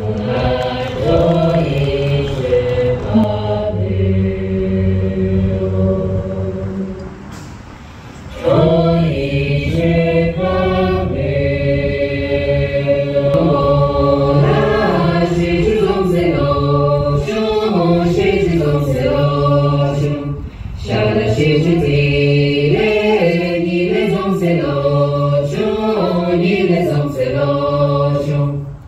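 A group of voices singing a Tibetan song together, unaccompanied, in long held notes. The singing pauses briefly about eight seconds in and dips again around twenty seconds.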